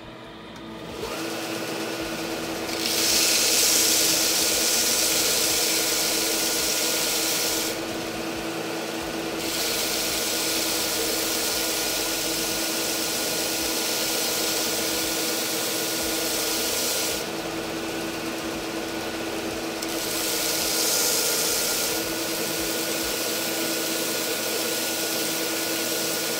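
Belt and disc sander switched on about a second in and running with a steady hum, while a rough bandsaw-cut wooden block is pressed hard onto the moving sanding belt in several long passes, each a loud abrasive hiss with short breaks between. The motor holds its speed under the heavy pressure without bogging down.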